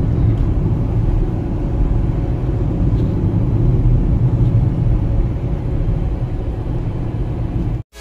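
Steady low rumble of a car driving along at road speed, road and engine noise heard from inside the cabin. It cuts off abruptly just before the end.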